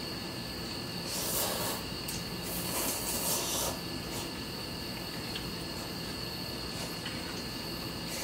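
Noodles being slurped from a bowl of kimchi stew, two long hissy slurps, the first about a second in and the second a little after, over a steady chirring of crickets.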